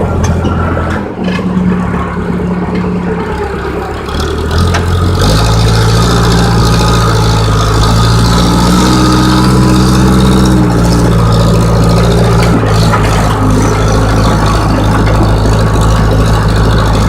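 Case 580E backhoe's diesel engine running under load, heard from inside the cab. It eases off for a few seconds, then comes back up about five seconds in and runs on steadily, briefly a little higher in pitch in the middle.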